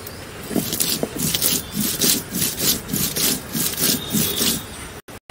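Stone roller grinding garlic, cumin and green chillies on a grooved stone grinding slab (sil-nora), rasping in quick back-and-forth strokes, about three a second, that stop just before the end.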